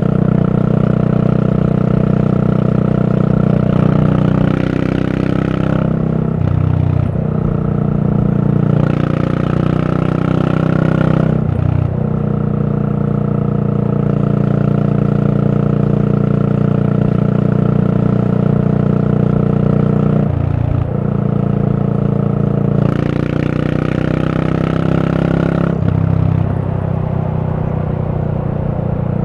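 Yamaha SR400's air-cooled single-cylinder four-stroke running under way through a Goods tapered-cone slip-on muffler. The steady exhaust note breaks off briefly and changes about four times.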